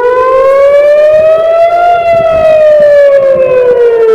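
Civil-defence air-raid siren wailing loudly, its pitch rising for about two seconds and then falling, as a rocket-attack alert sounds.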